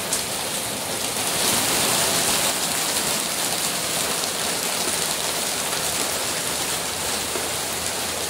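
Steady rain falling, heard from inside the car; it swells a little louder just over a second in.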